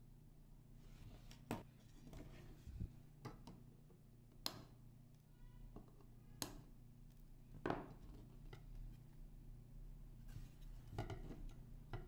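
Quiet, sharp snips and clicks, about six spread a second or two apart, from hand tools such as flush cutters working the leads of 100nF through-hole capacitors on a keyboard circuit board.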